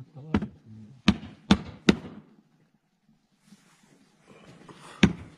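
Flatbread dough slapped back and forth between bare palms to stretch it into a round: four sharp slaps in the first two seconds, then a pause with a faint rustle and one more slap near the end.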